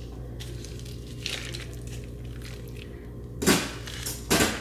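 Kitchen clatter: faint handling noises, then two loud sudden knocks or clatters near the end, over a steady low hum.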